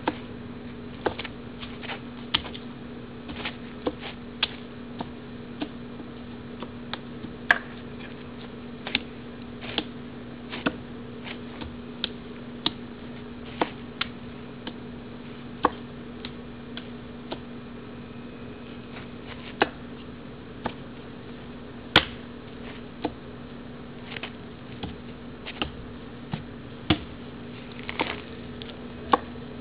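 Kung fu wooden man (wooden practice dummy) being struck and blocked with the forearms and hands: irregular sharp knocks and clacks on its arms, about one or two a second, some much harder than others, over a steady low hum.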